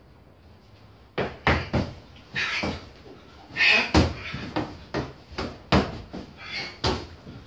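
Kicks and punches landing on a freestanding padded training dummy: an irregular, rapid series of sharp thuds starting about a second in, with short hissing swishes between some of the strikes.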